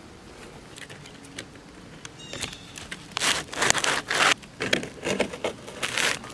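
Stiff asphalt shingle scraping and rasping against the shingled roof as it is lifted, flipped and handled, in several rough bursts from about three seconds in, after a few seconds of faint clicks.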